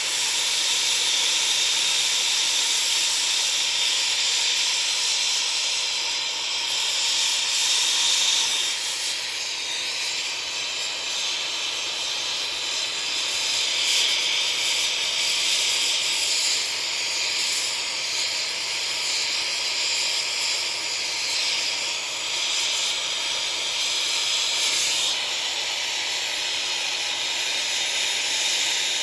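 Gas soldering torch burning with a steady hissing flame while heating a 3-inch copper pipe joint, the hiss shifting in strength now and then as the flame is moved.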